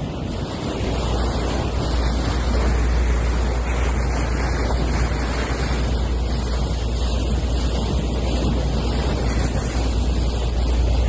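Water rushing and splashing along the hull of a moving yacht, with wind buffeting the microphone as a steady low rumble.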